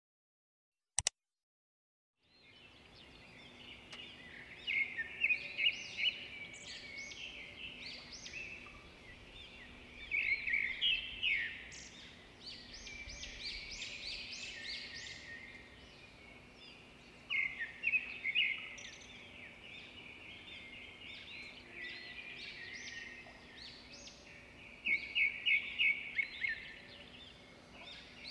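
A short click about a second in, then songbirds chirping and trilling in quick bursts, with a faint steady hum underneath.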